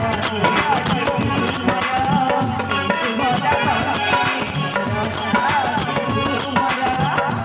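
Indian natak (folk theatre) music: fast, dense percussion with rattling shakers and drums under a wavering, ornamented melody line.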